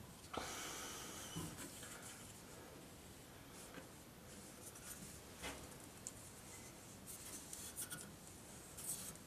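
Faint brushing and rubbing as solvent weld cement is brushed onto plastic waste pipe and fittings, with a few light clicks of the plastic parts being handled.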